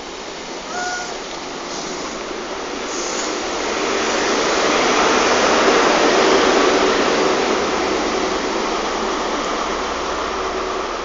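A train passing close through a station in the rain: a rushing rumble builds to a peak about six seconds in and slowly fades as the train draws away, with a steady hum in it, over the hiss of rain.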